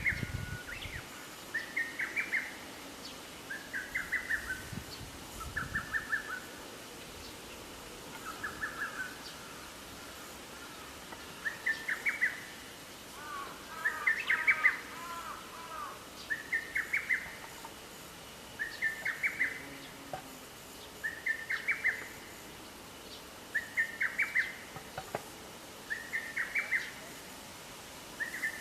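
Lesser cuckoo singing its quick multi-note phrase over and over, about once every two seconds, with one longer pause before the middle. Around halfway, another bird's lower twittering briefly overlaps the song.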